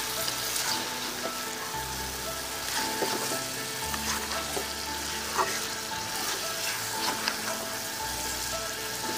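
Small spiny eels (baim/gochi fish) and spice paste sizzling in hot oil in an iron karai, a steady hiss, while a metal spatula stirs them with scattered scrapes and clicks against the pan. This is the koshano stage: the fish being fried in the masala before water goes in.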